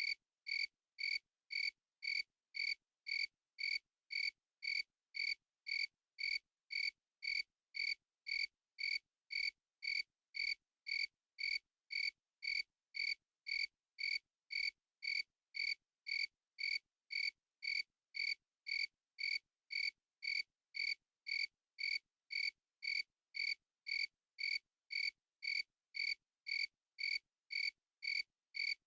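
Crickets chirping in a steady, even rhythm of just under two short chirps a second, every chirp the same strength.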